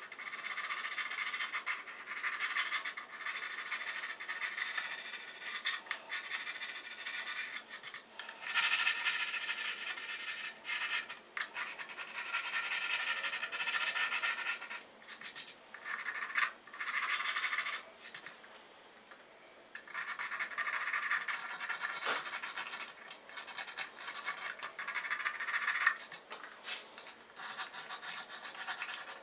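Hand-filing and sanding the edge of a wooden guitar body's f-hole: scratchy rubbing strokes of a small abrasive against the wood, coming in spells with short pauses. The work chamfers and rounds over the f-hole's sharp points.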